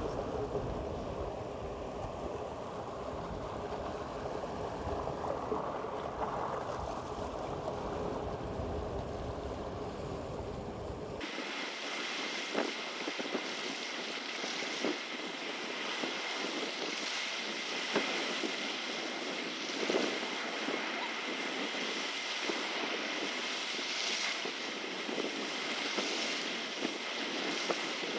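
River water rushing, with wind buffeting the microphone. About eleven seconds in the sound changes abruptly: the low rumble drops away, leaving a hiss of water with scattered small sharp splashes or clicks and a faint steady high tone.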